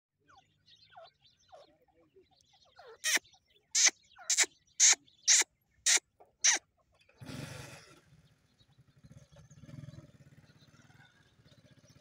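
Grey francolins calling: a few faint short calls, then a run of seven loud, shrill calls about two a second, the typical teetar call. After it comes a short rush of noise, then a low steady hum.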